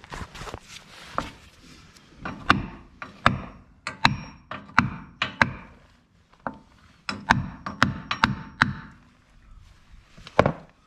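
Hammer tapping the upper bearing into the cast-iron bevel gear case on a Kubota B7200's front axle: about a dozen sharp metal strikes with a short ring, in two runs, then one louder blow near the end.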